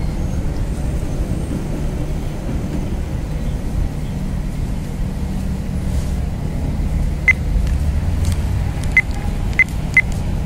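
Steady low rumble of a moving vehicle heard from inside, with a few short high ticks in the second half.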